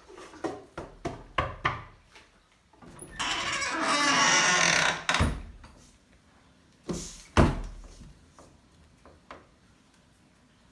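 A small child knocking on a door, a quick run of about five knocks. A longer rushing sound follows, then two heavy thumps a couple of seconds apart.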